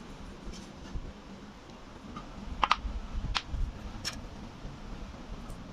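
Light handling sounds of a small electronics part: three sharp clicks about a second apart in the middle, over a low rumble of handling.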